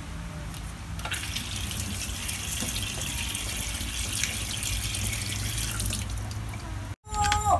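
Kitchen tap running, its water splashing over beetroots rubbed by hand and into a stainless steel sink. The rush of water gets louder about a second in and stops suddenly near the end.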